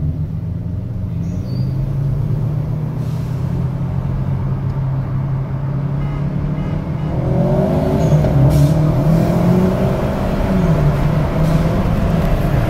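Car engine heard from inside the cabin of a moving car, running at a steady cruise, then revving up about halfway through as the car accelerates. Near the end the pitch briefly drops and climbs again.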